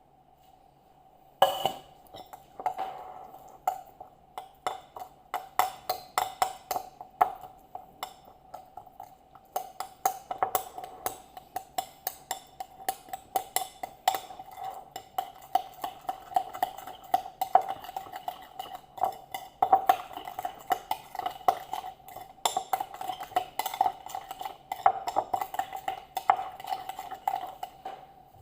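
Chicken being mixed with its marinade in a bowl: a long run of quick irregular clicks and taps against the bowl, several a second, over a steady ringing tone.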